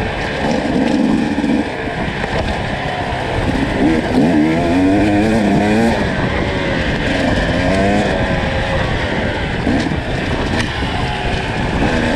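Enduro dirt bike engine revving up and down again and again, its pitch rising and falling with each twist of the throttle, over a rough, noisy rumble.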